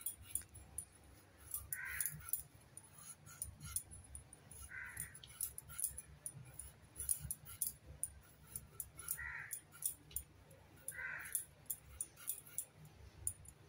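A potato being peeled against a boti, a curved blade fixed on a wooden base: a run of small scraping ticks as the skin is pared away. Four short animal calls sound a few seconds apart.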